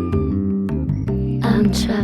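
Hip-hop backing music: low sustained bass notes under a steady ticking beat, with no rapping.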